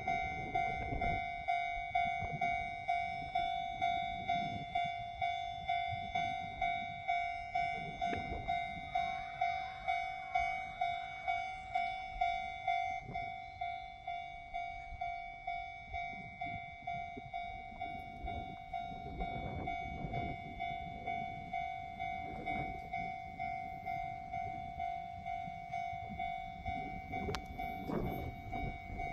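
Japanese railway level-crossing warning bell ringing a fast, even ding-ding-ding on one steady pitch. Beneath it a train passes with a low rumble that grows in the second half.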